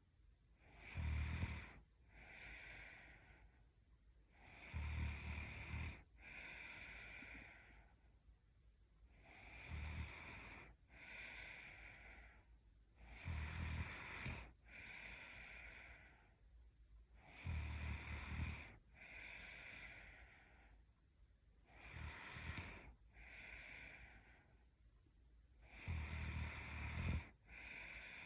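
A sleeping young woman snoring in a steady rhythm, about seven breaths. Each cycle is a louder snore lasting about a second, followed by a softer breath, repeating roughly every four seconds.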